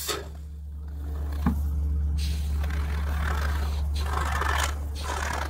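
Aerosol can of Great Stuff Gap Filler expanding foam spraying through its straw, in several short spurts of hiss and sputter, over a steady low hum.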